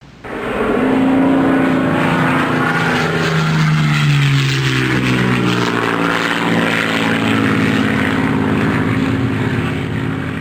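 Airplane landing: a loud, sustained engine drone over a rush of air noise, its engine tone dropping in pitch partway through. It fades away near the end.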